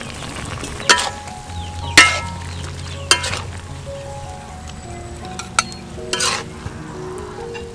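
Metal spatula scraping and knocking against a steel wok while sweet peppers are stir-fried, over a steady sizzle. About five sharp scrapes come at irregular intervals.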